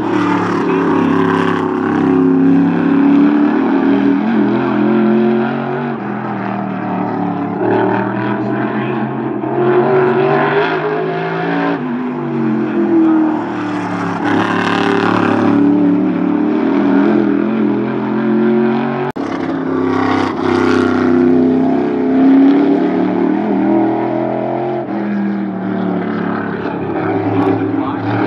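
NHSTRA Modified race car's V8 engine at speed on the oval, its pitch rising and falling over and over as it is driven hard down the straights and lifted into the turns. It grows louder as it passes, about halfway through and again about two-thirds of the way in.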